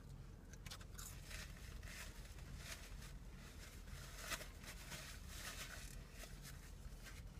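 Faint chewing of food, soft irregular crunches, over a low steady hum.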